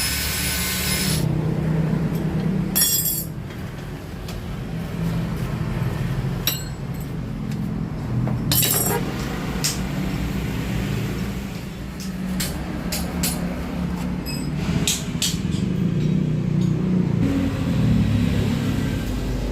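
Hand tools clinking against metal parts: scattered short clicks and clinks over a steady low hum.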